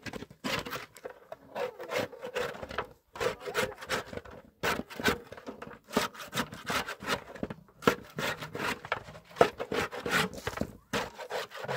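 Small hand trowel scraping and mixing a wet mix in a shallow basin: quick repeated scraping strokes against the basin, a few a second, with brief pauses between runs.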